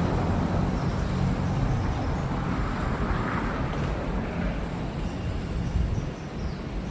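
Steady city road traffic noise: a continuous low rumble of vehicle engines and tyres.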